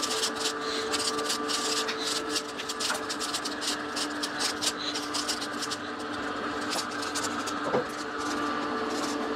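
Vertical slow juicer running steadily, its motor hum overlaid with a rapid crackling as broccoli and leafy greens are crushed in the auger.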